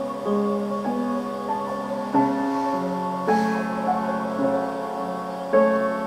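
Slow, soft instrumental music played on a keyboard, with held notes and chords changing every second or so.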